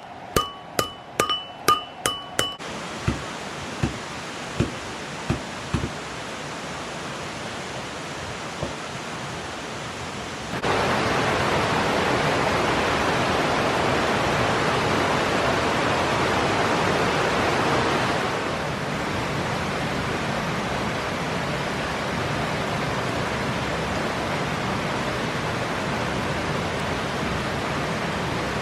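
A quick run of ringing metallic strikes, slowing and fading over the first few seconds, followed by the steady rush of a river, which steps up sharply in loudness about ten seconds in.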